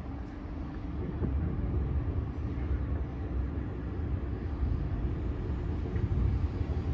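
Train running with a steady low rumble that grows gradually louder as it comes closer.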